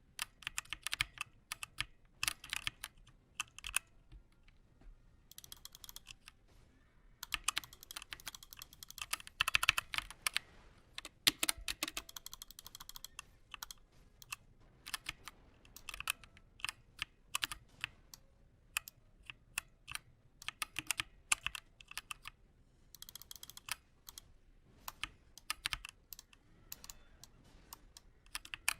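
Redragon Draconic K530 compact mechanical keyboard being typed on: irregular key clacks, coming in bursts of fast typing broken by short pauses.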